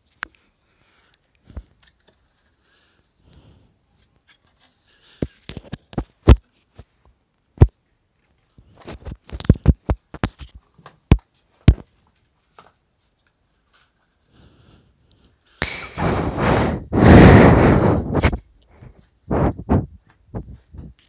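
Scattered knocks and clicks, then a loud rustling noise lasting about three seconds, followed by a few more knocks: handling noise of the phone as it is carried and brushed against things.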